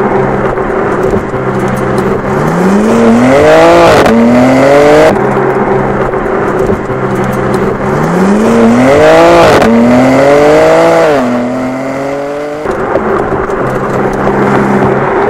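2023 BMW M2's twin-turbo straight-six engine and exhaust running at a steady cruise, then accelerating hard twice, the note climbing, dipping briefly at a gear change and climbing again before settling back to a steady cruise.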